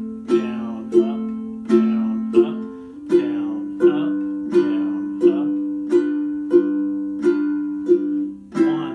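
Ukulele strummed in a steady down-up eighth-note pattern, about three strums every two seconds, moving from an F chord to G7 about three seconds in and on to C near the end.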